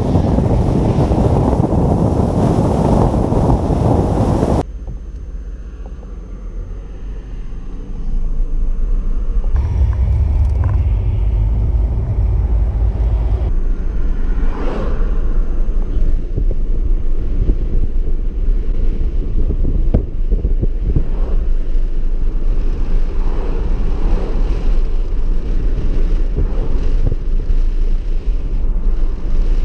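Wind buffeting a microphone mounted outside a moving pickup at road speed, then, after a sudden cut about four and a half seconds in, steady low road and tyre rumble inside the cab of a battery-electric converted Ford F-150 as it drives, with no engine note.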